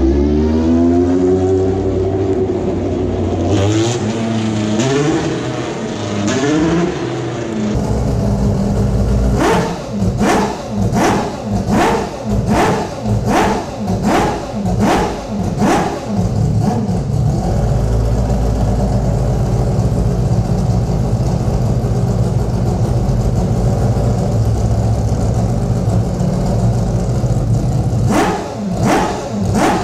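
Group C prototype race car engines: in the first eight seconds engine notes rise and fall as cars go by. After a cut about eight seconds in, an engine is revved in short sharp blips about once a second, then holds a steady note, with more blips near the end.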